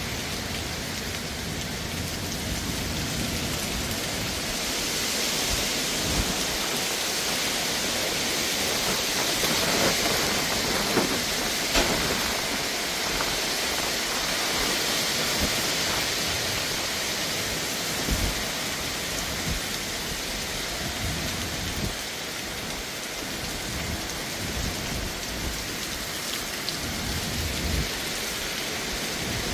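Heavy thunderstorm downpour with gusting wind, a steady rush of rain that swells loudest about ten to twelve seconds in, with scattered low thuds.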